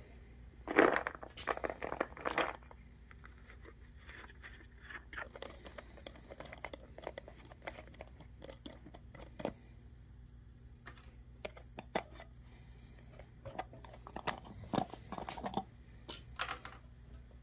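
Hands handling a rubber rock-tumbler barrel, turning the nut and working at the metal lid: scattered small clicks, scrapes and rustles, with busier clusters about a second in and again near the end.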